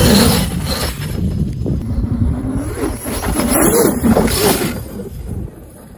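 Electric RC car running on an 8S battery, driven hard on paddle tires across sand: its motor whines up and down in pitch over a steady rush of tire and sand noise. The sound fades near the end as the car pulls away.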